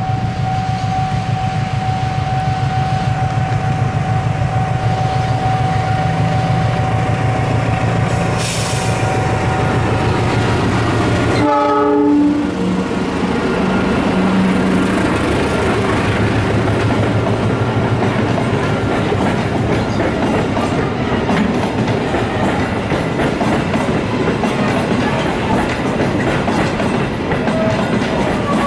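CC 206 diesel-electric locomotive running as it comes in with a long passenger train, with a steady high tone that stops about ten seconds in. Its horn gives one short blast about twelve seconds in. Then the passenger coaches roll past, their wheels clattering over the rail joints.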